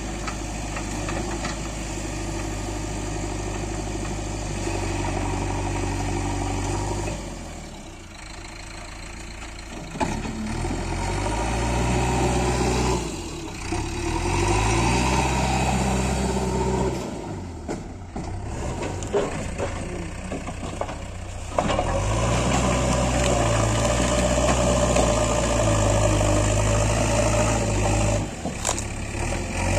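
JCB 3DX backhoe loader's diesel engine running under changing load as it digs, its speed dropping about seven seconds in, rising again from about ten seconds and running higher from about twenty-two seconds. A couple of sharp knocks stand out near the middle.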